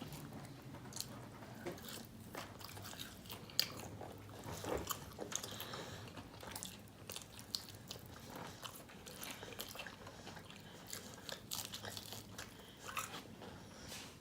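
Eating crispy Popeyes fried chicken: irregular crunchy bites and chewing, with scattered short clicks and crackles.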